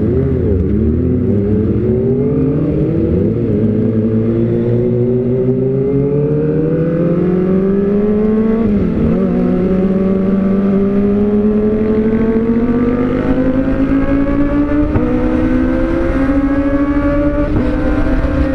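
Kawasaki ZX-25R's 250 cc inline-four, fitted with an Austin Racing aftermarket silencer, accelerating away from a stop. Its pitch climbs steadily and dips briefly at each upshift, about four times.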